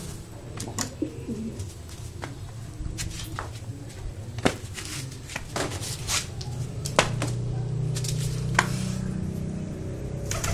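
Domestic pigeon cooing, a low repeated coo that grows stronger about seven seconds in, with scattered sharp taps.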